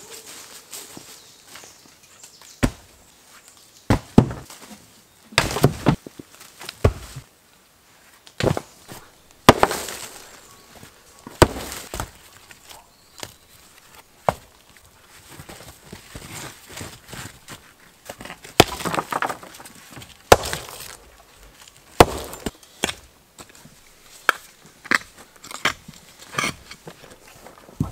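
Irregular knocks and scrapes of hand work in an earth pit: rocks clunking against each other as they are set in place, and a small pick chopping into soil. Near the end the strikes come quickly one after another.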